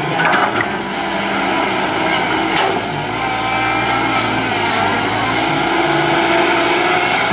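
Caterpillar 312D hydraulic excavator's diesel engine running steadily under working load while it digs, with a sharp knock right at the start and another about two and a half seconds in.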